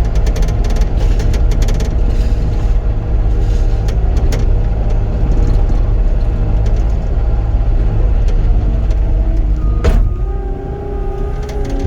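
Cat 259D compact track loader's diesel engine running at working speed, with rattling and clanking from the machine as it grades dirt. A sharp knock comes about ten seconds in, after which the engine runs a little quieter with a steady hum.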